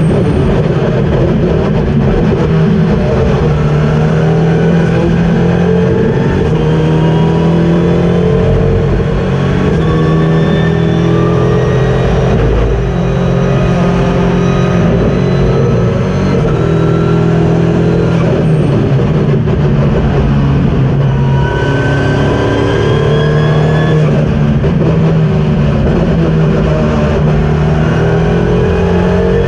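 KTM X-Bow GT4 race car's turbocharged four-cylinder engine at racing speed, heard from inside the cockpit: the engine note climbs under hard acceleration and drops back at each gear change, over and over, with road and wind noise underneath.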